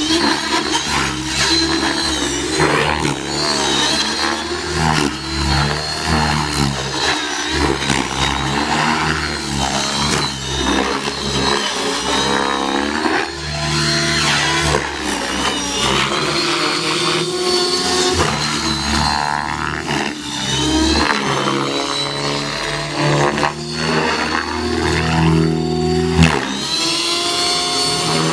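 Align T-Rex 600E electric RC helicopter flying aerobatics: its rotor and electric motor buzz and whine continuously, the pitch rising and falling as the manoeuvres change.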